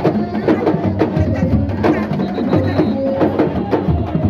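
Sabar drums playing a fast, dense rhythm of sharp hand-and-stick strikes.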